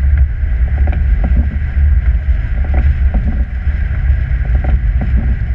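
Vehicle driving on a snow-covered road, heard from inside the cab: a steady low rumble of engine and tyres with scattered light knocks and rattles.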